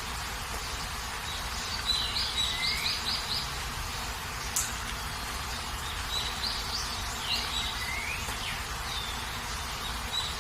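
Steady rain hiss, with a bird singing two short phrases of quick repeated chirps, about a second and a half in and again about six seconds in, and one sharp click between them.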